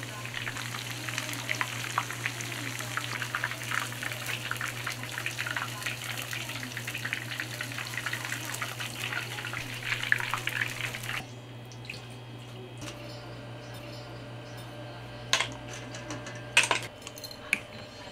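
Oil crackling and sizzling as breaded shrimp deep-fry in a two-handled iron pan. It cuts off about eleven seconds in, leaving a quieter kitchen with a few sharp clicks and knocks.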